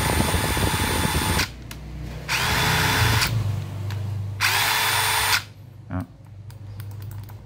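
DeWalt 18V XR brushless impact driver spinning freely with no load in three short trigger pulls, each a steady whine that winds up as it starts. The first run stops about a second and a half in, and the other two last about a second each. Light clicks of the bit being handled follow near the end.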